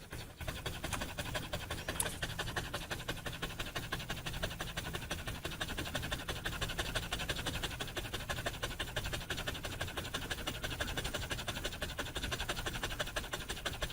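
A large dog panting steadily, in quick, even breaths.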